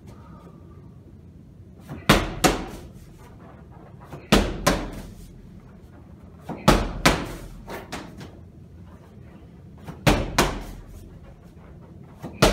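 Overhead medicine ball slams: a heavy medicine ball is driven down hard five times, about every two to three seconds. Each slam is a sharp, loud thud followed a moment later by a second, smaller thud as the ball bounces, with the last slam coming right at the end.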